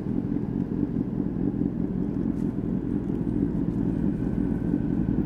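Honda CBR600RR inline-four sportbike with a Leo Vince aftermarket exhaust, running at steady revs and heard on board the moving motorcycle.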